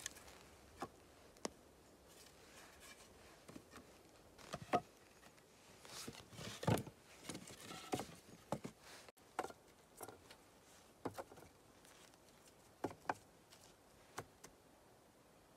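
Light wooden knocks and clacks of round poles and split sticks being set down against each other as they are laid side by side across crosspieces, a scattering of single taps with a busier cluster about six to seven seconds in.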